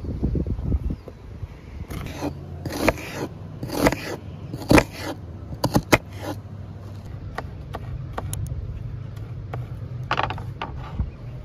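Large kitchen knife slicing through a peeled onion and striking a wooden cutting board: a series of separate sharp cuts, roughly one a second, over a steady low hum.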